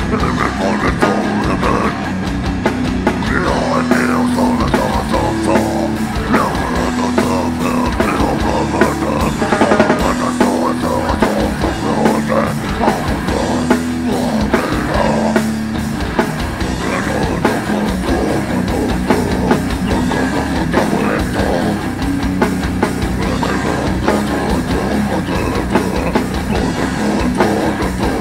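Live heavy rock band playing loud: distorted electric guitars and a drum kit pounding out a riff of repeated held low notes, with a singer shouting over it.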